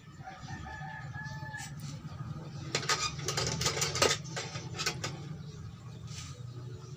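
A quick run of light clicks and rattles from handling a soldering iron and loose wires on the bare metal backplate of an LED TV, over a steady low hum.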